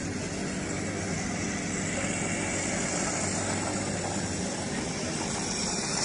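An engine running steadily under a broad hiss.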